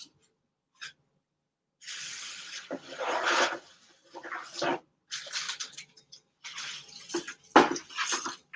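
Paper and packaging being handled: irregular rustling and crinkling in bursts, with one sharp knock near the end.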